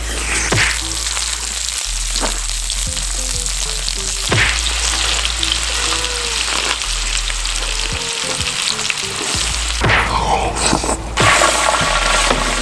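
Meat sizzling on a grill, a steady hiss, under background music with short held notes.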